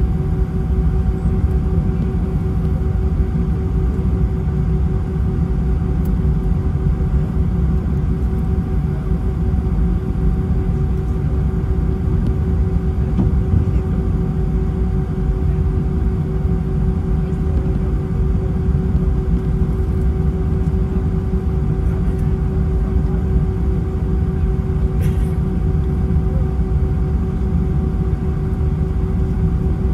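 Airbus A319 cabin noise: its IAE V2500 jet engines running steadily, a deep, even rumble with a constant hum over it.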